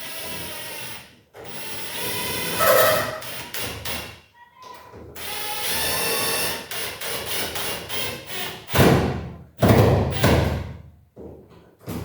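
Power drill/driver running in several short runs while fitting a door lockset, followed by two louder heavy stretches of handling noise near the end.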